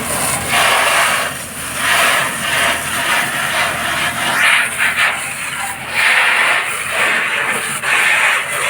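Fire hose jet spraying water onto a burning car: a loud, noisy rush that swells and eases every second or two as the jet plays over the vehicle.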